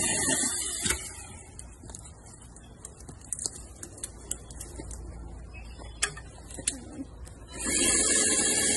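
Cordless brushed-motor electric pole saw (Powerworks 60V) running with its chain, cutting off about half a second in. A few sharp clicks and snaps follow, then the saw starts running again near the end.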